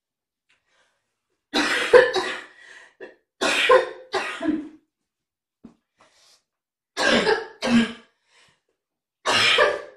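A person coughing in repeated short fits, mostly two coughs at a time, with a pause of a couple of seconds between fits.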